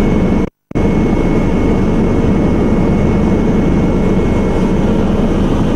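Steady engine and airflow noise of an aircraft, heard from inside the cabin, with a faint steady high whine. The sound drops out completely for a moment about half a second in.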